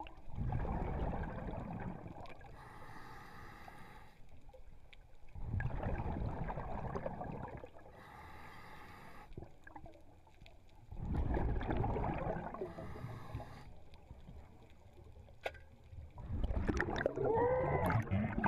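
Scuba diver breathing through a regulator underwater. Long rumbling bursts of exhaled bubbles alternate with short, high-pitched hisses of inhalation, about every five and a half seconds. A fourth exhalation starts near the end.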